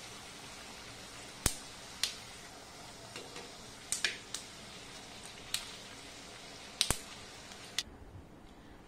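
Puris frying in hot ghee in an aluminium kadai: a steady sizzle with sharp clicks and pops every second or so. The sizzle stops shortly before the end.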